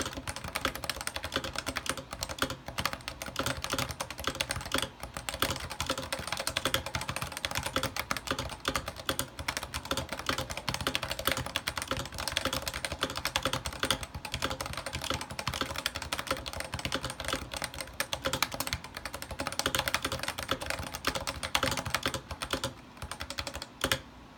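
Continuous fast typing on a lubed Cooler Master NovaTouch, whose electro-capacitive rubber-dome switches carry GMK doubleshot ABS keycaps. It is a quick, steady patter of keystrokes that stops just before the end.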